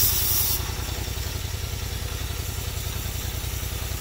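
Go-kart's 440 engine idling with a steady low pulse while air is blown on its overheated clutch. The hiss of the air cuts off about half a second in.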